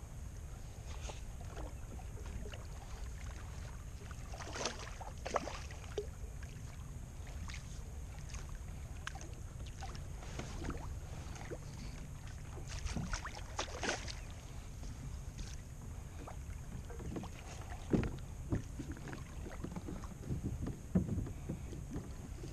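Steady low wind rumble on the microphone, broken by irregular splashes and knocks as a hooked red drum is fought beside a kayak and scooped into a landing net. The sharpest splashes come about five seconds in and twice near the end.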